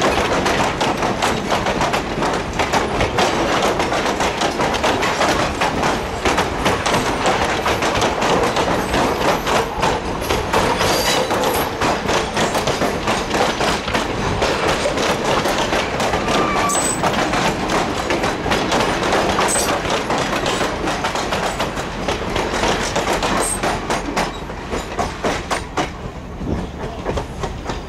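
Passenger coaches rolling past close by, their steel wheels clicking rapidly over the rail joints. The sound fades near the end as the last car moves away.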